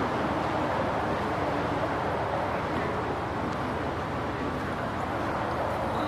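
Steady city street noise with vehicle traffic running, an even wash of sound with no sharp events.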